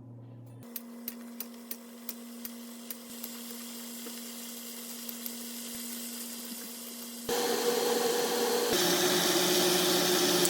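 A small electric appliance motor: first a steady low hum with a run of clicks that slow down, then about seven seconds in a much louder whirring motor starts, and its pitch drops once partway through.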